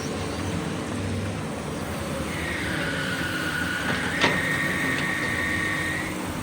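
Hydraulic excavator's diesel engine running under load, with a high metallic squeal that starts about two seconds in, dips in pitch and then rises and holds for about four seconds. A sharp clank comes partway through.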